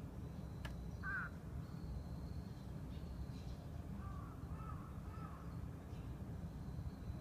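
Crow cawing: one short caw about a second in, then a run of three caws between about four and five and a half seconds, over a steady low hum.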